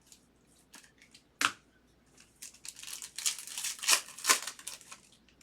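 A sharp snap about a second and a half in, then a couple of seconds of crinkling and tearing as a trading-card pack wrapper is opened.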